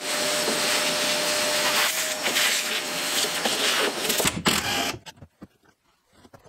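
Shop vacuum running steadily with a faint whine, sucking up dirt. A little after four seconds it gives way to a cordless impact wrench rattling briefly on a nut, followed by a few light clicks.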